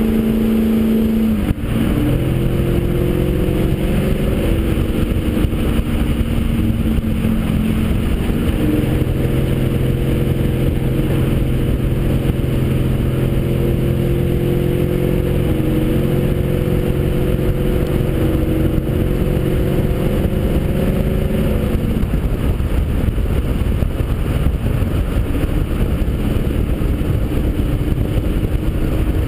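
Nissan 240SX driving on the road, heard from a camera mounted low on the outside of the car. The engine note drops in pitch about a second and a half in, holds steady for a long stretch, then fades out a little past two-thirds of the way through, leaving a steady rush of road and wind noise.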